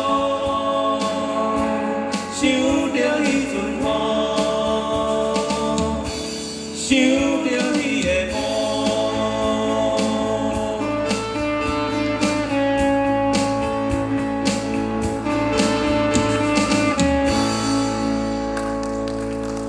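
A live band of men singing to guitars and an electric bass. The low end fills out about eight seconds in.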